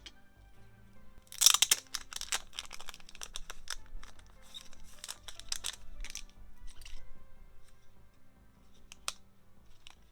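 Paper and plastic mail packaging being torn open and crinkled by hand: a sharp tear about a second and a half in, then a run of rustling and crinkling and a few light clicks near the end. Soft background music plays throughout.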